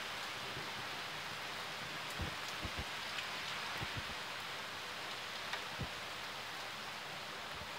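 Heavy rain falling steadily, a continuous hiss, with a few brief low thumps scattered through the middle.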